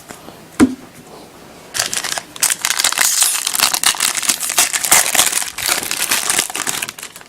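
Plastic wrapper of a trading card pack torn open and crinkled by hand: a dense crackling rustle from about two seconds in, after a short thump about half a second in.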